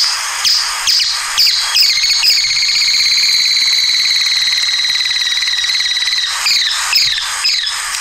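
Ash-colored tapaculo (Myornis senilis) song: a series of short downslurred notes, about two a second, running into a long, even, high-pitched trill of about four seconds, which breaks back into downslurred notes near the end.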